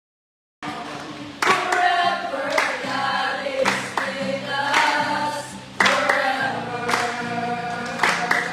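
Congregation or worship team singing a song together over a steady bass accompaniment, cutting in abruptly about half a second in. Sharp loud accents land roughly every two seconds.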